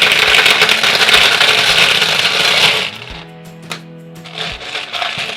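Loud crinkling and rustling of plastic packaging as a surprise toy is unwrapped for about three seconds, then softer rustles and clicks of handling, over background music.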